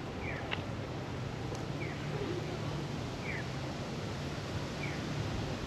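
A bird's short falling chirp, repeated about every second and a half over a steady background hiss and low rumble, with a single faint click about half a second in.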